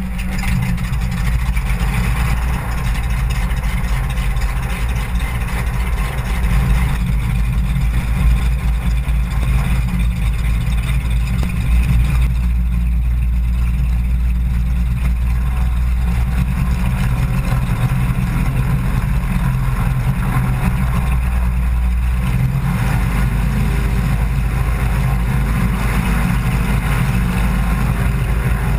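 Maule M4 floatplane's piston engine and propeller running steadily as the plane taxis on the water, with water rushing off the floats. The engine note changes about three-quarters of the way through.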